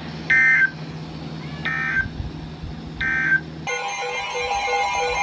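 Three short bursts of EAS/SAME end-of-message data tones, the warbling digital signal that closes a NOAA Weather Radio warning, sent about 1.3 s apart over a low hum. Music with guitar starts about three and a half seconds in.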